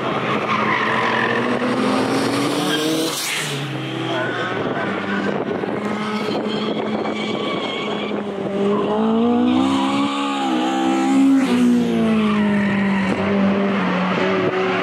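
A drifting Toyota Corolla, its engine revving up and down in repeated rising and falling swoops, with tyres squealing and skidding.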